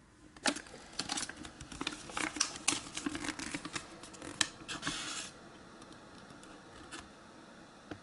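A thin paper instruction leaflet being unfolded and handled, crinkling and crackling in quick irregular clicks for about five seconds. Two single soft clicks follow near the end.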